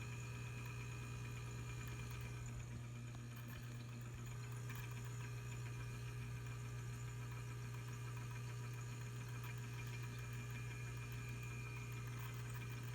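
Refrigerator running with a steady low hum and faint whining tones from its fan motor, dipping slightly about three seconds in. The fan motor is failing, on its last legs.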